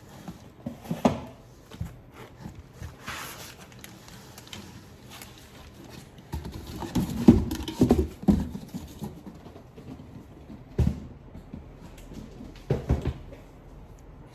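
Items being handled on a hard surface: scattered light clicks and rustles, with a burst of louder thumps and knocks about halfway through and a couple of single knocks near the end.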